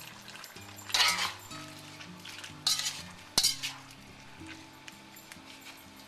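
Metal utensil stirring and scraping in a wok of saucy chicken and tomatoes: a few short scrapes about one, two and a half and three and a half seconds in, with a sharp clink near three and a half seconds.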